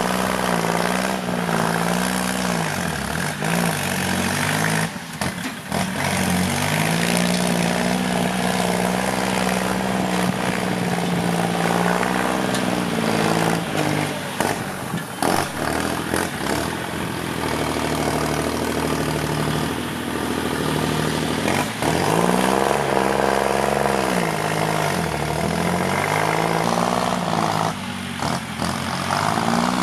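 Kubota L3608 tractor's three-cylinder diesel engine, on a loud aftermarket exhaust, working hard while pushing soil. Its speed sags and picks up again many times, with a few knocks around five and fifteen seconds in.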